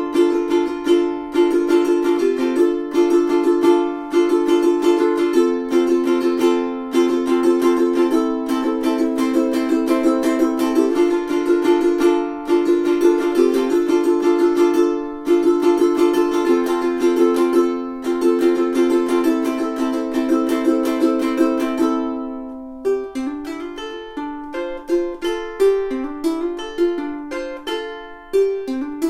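Pete Howlett Revelator koa-top tenor ukulele strummed in rhythmic chords; about 22 seconds in a chord rings out and the playing turns to picked single notes.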